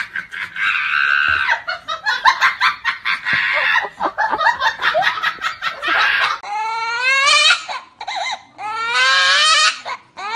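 A person laughing hard in quick, breathy pulses. About six seconds in, a caged green parrot starts mimicking a crying baby: long wailing sobs that rise and fall in pitch, broken by short pauses.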